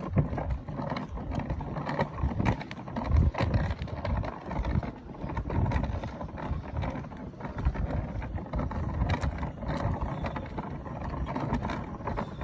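Wheels of a ride-on toy police car rolling over rough concrete, a steady rumble with scattered knocks and clicks.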